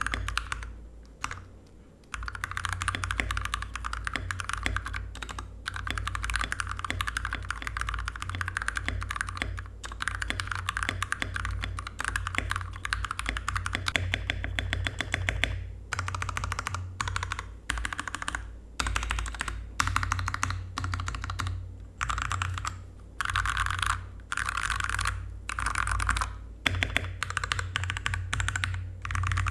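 Typing on a custom mechanical keyboard, a Koodo Arcadia with lubed Gateron Black linear switches, lubed Durock plate-mount stabilizers and an acrylic case. A dense run of keystroke clacks goes on steadily for about half the time, then breaks into short bursts separated by brief pauses.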